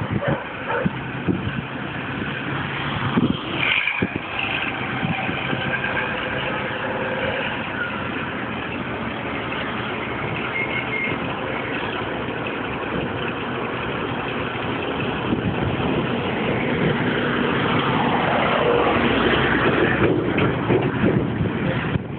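Renault 370 tractor unit's diesel engine running steadily while the tipper semi-trailer's body is raised to dump its load. It grows louder over the last few seconds.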